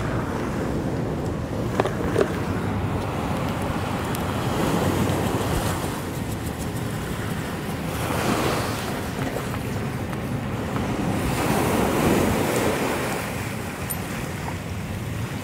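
Ocean surf washing in over a rocky shore, swelling in a few surges as waves come in, with wind buffeting the microphone.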